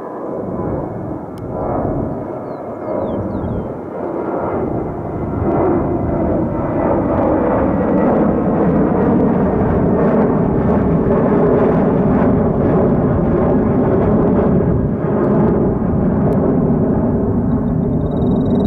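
Jet airliner engines rumbling as a plane passes the spotting spot, growing louder about five seconds in and then holding steady, with a faint tone slowly falling in pitch. A bird calls near the end.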